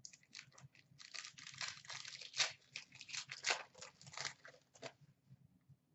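Foil wrapper of an Upper Deck hockey card pack crinkling and crackling in the hands as it is torn open, a rapid run of sharp crackles that stops about five seconds in.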